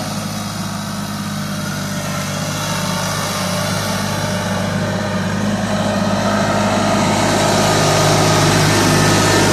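TYM compact tractor's diesel engine running steadily, growing louder as the tractor drives up close.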